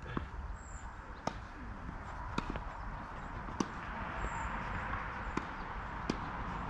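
Tennis rally: sharp pops of racket strikes and ball bounces, about one a second, over a steady low outdoor hiss.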